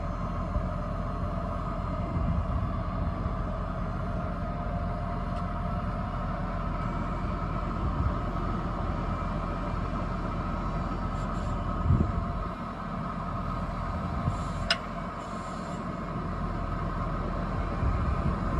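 Farm tractor running steadily, a low engine rumble with a steady whine over it and a sharp click about three-quarters of the way in.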